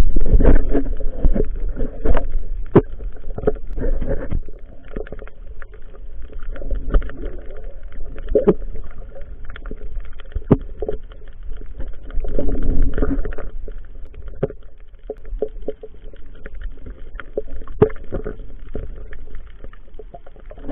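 Underwater sound heard through a submerged camera: a muffled rumbling of moving water and bubbles, swelling loudest at the start and again about twelve seconds in, with scattered clicks and knocks throughout.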